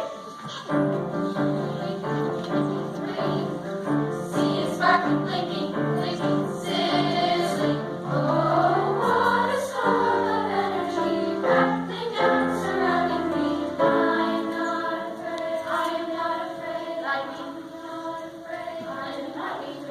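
Choral music: several voices singing sustained chords, with a sweeping passage of rising and falling pitches near the middle.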